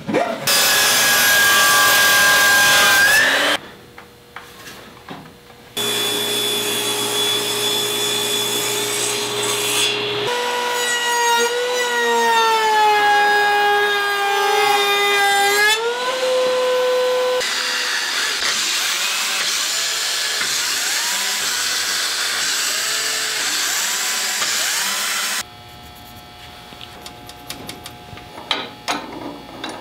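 Woodworking power tools in turn. First a saw motor whines through a cut. Then a router spins a roundover bit with a steady high whine that sags in pitch as the bit cuts into the wood and rises again as the cut ends, followed by several seconds of cutting noise. Near the end there are quieter small clicks and taps.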